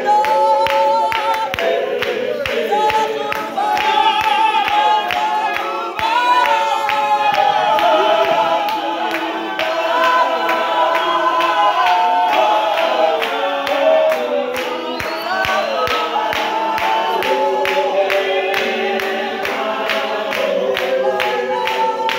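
A group of people singing together unaccompanied, with a steady beat of handclaps.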